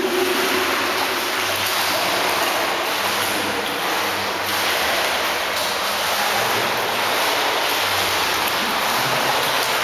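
Steady rush of churning water in an indoor pool, starting suddenly and holding even throughout.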